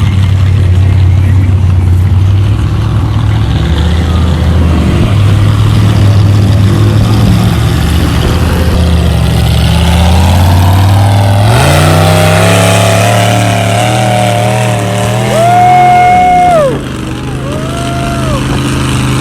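Mud truck engine running steadily, then revving hard about two-thirds of the way through and held at high revs, with a high, wavering whine over it that swells and cuts off sharply; a shorter whine follows near the end.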